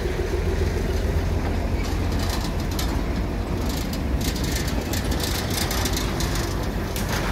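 Loaded wagons of a narrow-gauge sugarcane train rolling close past, their wheels rattling and clicking on the track over a steady low rumble. The hauling Hokuriku D5 diesel locomotive's engine fades away in the first couple of seconds.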